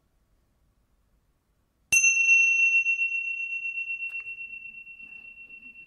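A pair of small tingsha cymbals struck together once, about two seconds in. They ring with a clear high tone and a fainter higher overtone that dies away first, while the main tone fades slowly. The single strike marks the end of a silent meditation.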